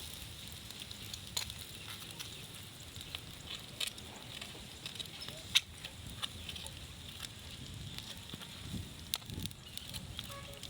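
Fish grilling over a fire, sizzling steadily with irregular crackles and pops as the fish render fat; one sharp pop about five and a half seconds in is the loudest.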